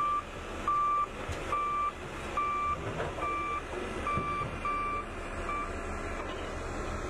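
A construction vehicle's reversing alarm beeps a single steady tone about once a second and stops about five and a half seconds in, over a low rumble.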